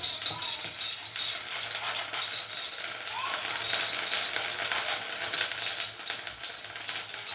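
Rice grains rattling and scraping against a pot as a wire whisk stirs them, dry-roasting to puff into muri. A dense, continuous rattle of many small clicks.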